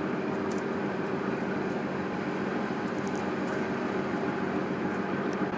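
Svitzer harbour tug's diesel engines running as it passes close by, a steady drone with a low hum.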